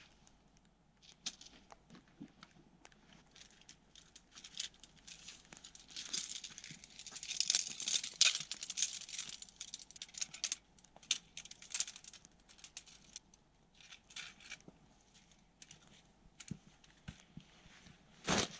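Tent fabric crinkling and rustling as a tent is handled and pitched, with scattered clicks and rattles. The handling is busiest in the middle, and one louder knock comes near the end.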